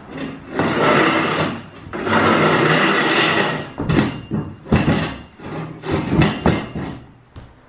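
Steel rebar being worked in a homemade pipe bender: two long scraping noises, each over a second, then a run of sharp metal knocks and clanks.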